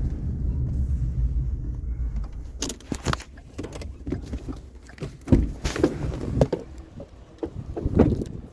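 Low rumble of a vehicle running for the first two seconds or so, then a string of clunks, knocks and rattles, loudest about five and eight seconds in.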